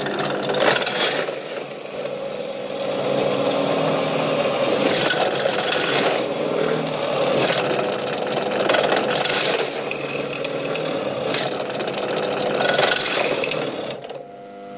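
Bench drill press running and drilling through a thin metal plate: a steady motor hum with several short, high squeals of the bit cutting the metal. The sound drops away near the end.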